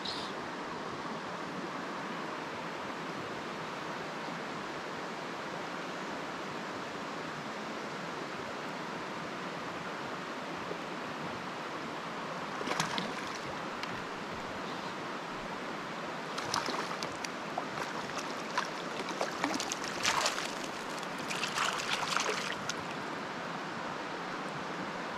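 Steady rush of a mountain river's pocket water, with a short burst of splashing about halfway through and more splashing over the last third as a trout is brought into a landing net.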